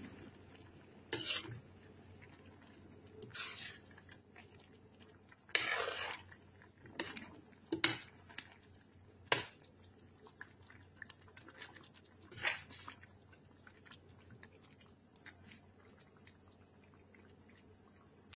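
Metal spoon scraping and clinking against a stainless steel pan while stirring a thick potato-and-pea curry: a dozen or so separate short, faint scrapes and knocks, the loudest few near the middle.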